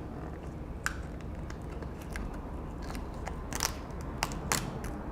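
Adhesive sticker being peeled up off a MacBook Pro's battery connector: scattered small crackles and sharp clicks.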